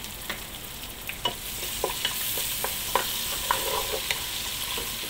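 Chopped onions and ginger-garlic paste sizzling in hot oil in a nonstick pot while a wooden spatula stirs them. The spatula knocks and scrapes against the pot about every half second, starting about a second in.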